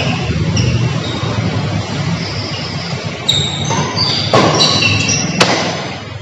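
Badminton rally on an indoor court: sharp racket strikes on the shuttlecock, three in the second half, among short high squeaks of shoes on the court floor, over a steady hiss.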